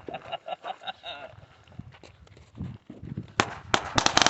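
Fireworks going off: two sharp pops a little past three seconds in, then a rapid string of crackling pops near the end.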